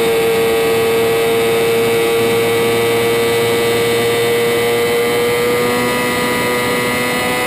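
Racing sport bike's engine running flat out at high, nearly constant revs, with rushing wind noise, as heard from a camera mounted on the bike. The engine note holds steady, then climbs slightly in the last couple of seconds.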